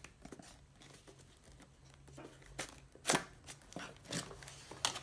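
Small cardboard product box being opened by hand: a quiet start, then several short, sharp scrapes and rips of cardboard as the end flap is worked open, the loudest about three seconds in.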